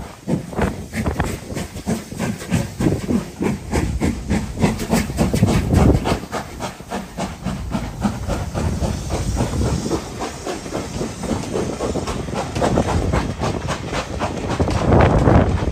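Two steam locomotives, an LMS Black Five and a rebuilt Southern West Country Pacific, double-heading a train away from a station: rapid, overlapping exhaust beats with steam hiss and a low rumble, getting louder near the end.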